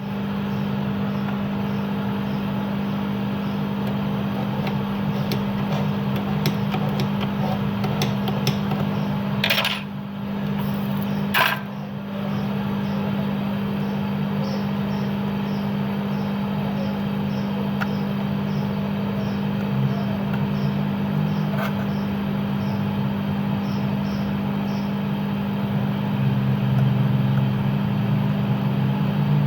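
Steady low hum of a small electric motor running, with two short sharp clicks about ten and eleven and a half seconds in.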